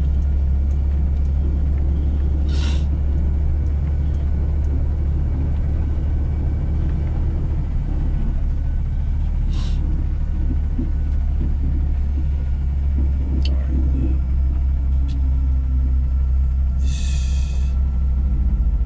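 Heavy diesel dump truck's engine and drivetrain heard from inside the cab while driving: a steady, deep drone. A few short hisses cut through it, the longest near the end.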